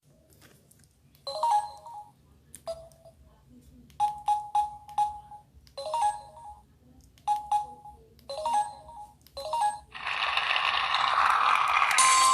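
Samsung Gravity 2 (SGH-T469) mobile phone sounding through its speaker: a series of short, irregularly spaced clicky beeps, then about ten seconds in a rising, rushing swell as a ringtone begins.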